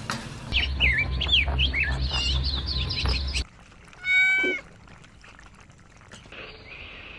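A run of quick, high chirping squeaks from a small animal over a low hum, then, after a cut, one loud cat meow lasting about half a second, which is the loudest sound.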